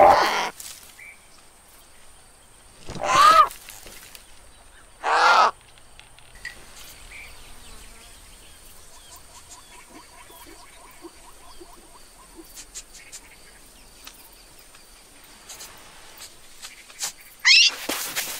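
Cartoon animal voices: two short, rough calls about two seconds apart, the first falling in pitch. Then a quiet stretch with faint repeated chirping, and a quick rising cry near the end.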